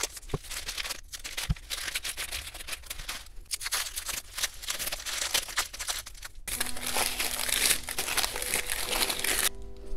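Masking paper and masking tape being peeled and torn off a steering wheel rim: paper crinkling and tearing with a run of quick crackles. Background music comes in near the end.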